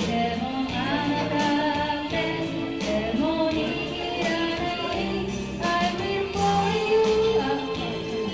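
A woman singing karaoke into a microphone over a backing track with a steady beat.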